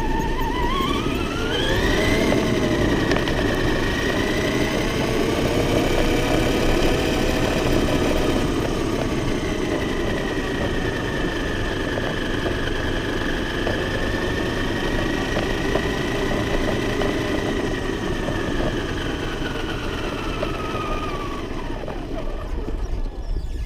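Remote-control monster truck driving: its motor whine rises in pitch about two seconds in, holds fairly level, then falls away and stops near the end, over a rough, steady rumble.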